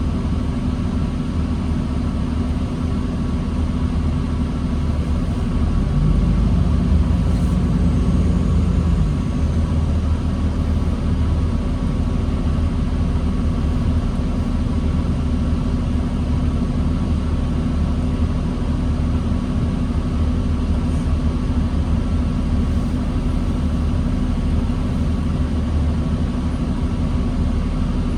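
Diesel engine of a 2009 New Flyer D40LFR transit bus running low and steady, heard from inside the bus. Its note swells briefly between about six and nine seconds in.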